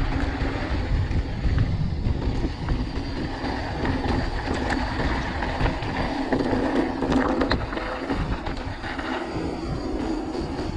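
Mountain bike rolling fast down a gravel trail: tyres crunching over loose stones while the bike rattles over the bumps, a dense run of small clicks and knocks.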